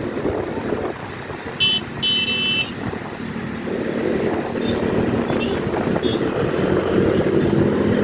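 Two short blasts of a tour bus's multi-tone basuri telolet horn, about a second and a half in, over steady traffic rumble; an engine's low drone grows louder in the second half.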